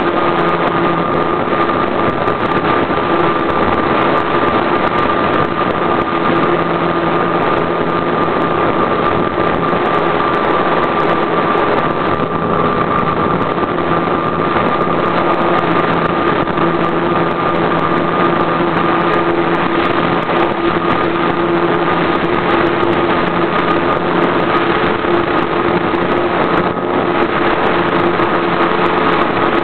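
RC model airplane engine running steadily at an even pitch, heard up close from a camera mounted on the plane, with rushing noise beneath it.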